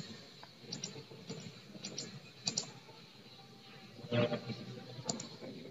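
Sparse clicks from a computer keyboard and mouse, a few at a time, with a brief louder sound about four seconds in.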